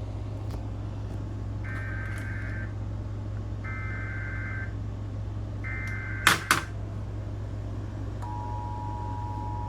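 Emergency Alert System broadcast tones: three roughly one-second bursts of SAME header data, then two loud clicks, then, about eight seconds in, the steady two-tone EAS attention signal begins. A steady low hum runs underneath.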